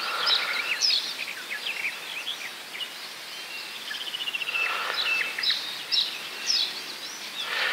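Several songbirds singing and calling: short chirps, whistled notes and rapid trills, over a faint steady background hiss.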